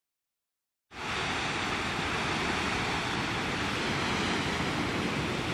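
A steady rushing noise that cuts in abruptly about a second in and holds at an even level.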